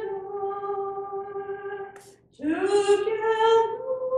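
A woman singing solo, unaccompanied: one long held note that fades away about two seconds in, then after a short breath a new note that scoops up from below and is held, stepping a little higher near the end.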